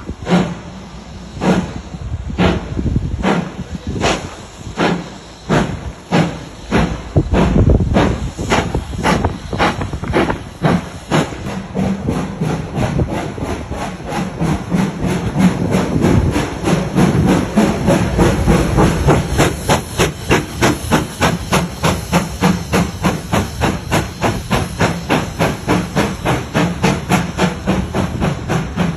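GWR Grange-class 4-6-0 steam locomotive's two-cylinder exhaust chuffing as it gradually accelerates up a gentle incline. The sharp, hissing beats come steadily faster, from slow, widely spaced chuffs to a rapid, even rhythm.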